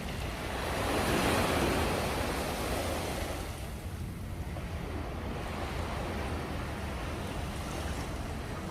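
Sea waves washing onto the shore: one wave surges and fades about a second in, over a steady wash of surf, with a low wind rumble on the microphone.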